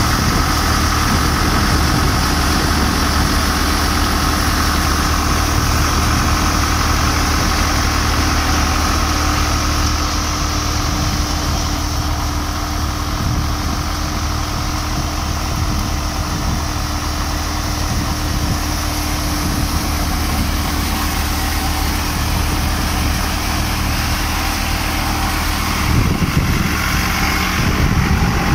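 Jangeer mini combine threshing at a steady run, driven by a diesel tractor engine: a constant engine drone under the whirring hiss of the thresher's drum and fan blowing out chaff. The engine note shifts about 26 seconds in.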